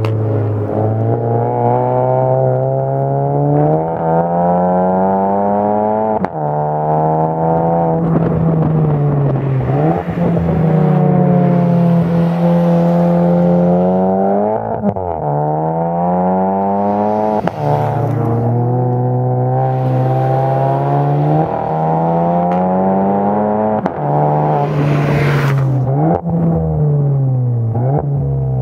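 VW Golf MK8 GTI's 2.0-litre turbocharged four-cylinder engine through an Armytrix turbo-back valvetronic exhaust with a 200-cell sport cat, being driven hard: the revs climb and fall again and again, with sharp drops every few seconds as the driver lifts off or shifts.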